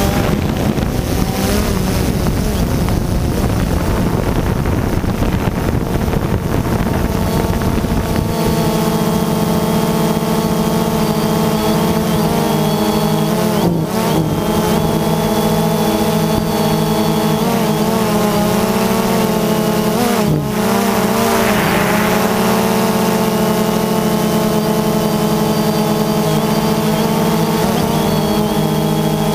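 DJI Phantom 2 quadcopter's motors and propellers humming steadily, heard from the camera on board. For the first several seconds wind noise on the microphone covers much of the hum; after that the hum is clear, and its pitch wavers briefly a few times as the motors change speed.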